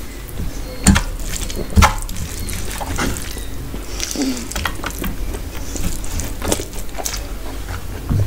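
Close-up eating sounds: wet chewing and mouth smacks from biting boiled egg and eating rice and dal by hand, with many short sharp clicks. There are two low thumps about one and two seconds in.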